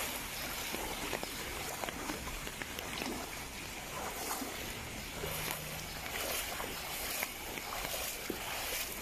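Feet wading through shallow floodwater on a paved street, water sloshing and splashing with the steps, over the steady hiss of rain falling on the flooded road.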